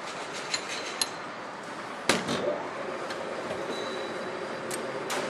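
Metal parts and tools clinking and knocking during motorcycle engine assembly: a handful of sharp metallic clinks, the loudest knock about two seconds in, over a steady background noise.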